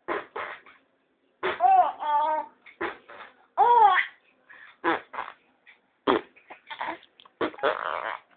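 A baby laughing in short bursts, some rising and falling in pitch like squeals.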